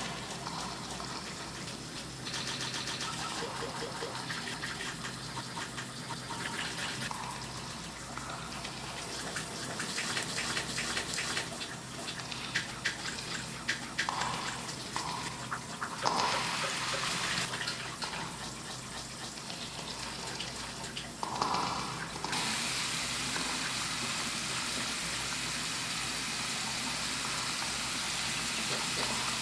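Shower spray running, a hiss of falling water. It is uneven, with scattered clicks and swells, until about three-quarters of the way in, then turns steady and even.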